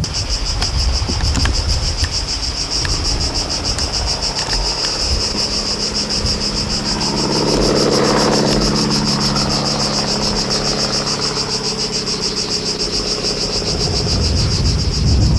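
A loud insect chorus: a fast-pulsing, high, buzzing chirr that goes on without a break. Through the middle, a low hum rises and fades beneath it.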